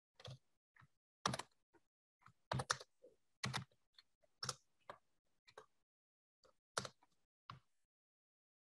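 Computer keyboard typing: irregular single keystrokes, about two a second, separated by short silent gaps.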